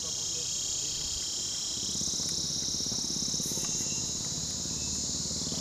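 A steady, unbroken chorus of insects shrilling high, with a faint low rumble beneath it.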